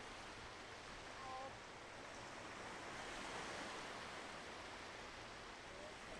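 Faint steady wash of small waves breaking on a sandy beach, swelling a little in the middle, with a short faint pitched call about a second in.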